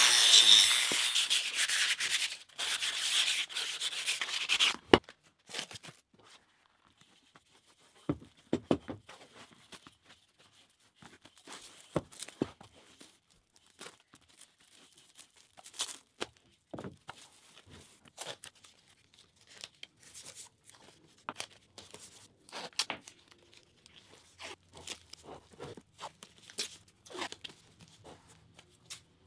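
A handheld power tool runs against a rusty steel wheel rim and cuts off about five seconds in. After that come scattered short rustles, crinkles and tearing noises from plastic wrap and painter's tape being handled around the tyre.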